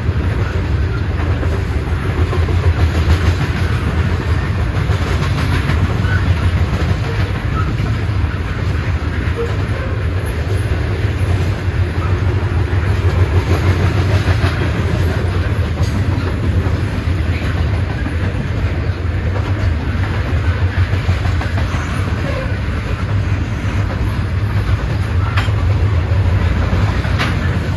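Loaded coal cars of a Norfolk Southern freight train rolling past: a steady low rumble of steel wheels on the rails, with occasional clacks over rail joints.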